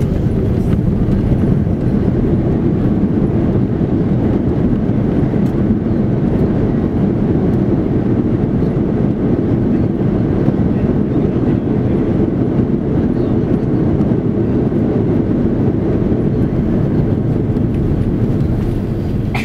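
Loud, steady roar of jet engines and rushing air inside the cabin of an Airbus A330-300 airliner.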